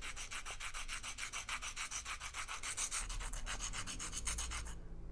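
Charcoal pencil being sharpened on a sandpaper block: quick, even back-and-forth rubbing strokes, about eight a second, as the wood and charcoal tip are sanded to a long point. The strokes stop shortly before the end.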